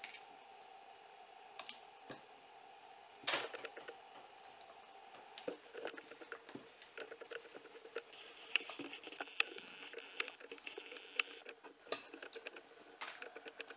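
Scattered small clicks and knocks of plastic and metal parts being handled as a nut is fitted onto a long bolt while a metal detector is assembled, over a faint steady hum. The loudest knock comes about three seconds in.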